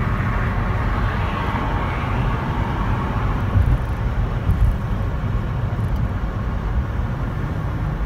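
City street traffic: a steady low rumble of engines and tyres, with a passing vehicle that swells and fades over the first few seconds.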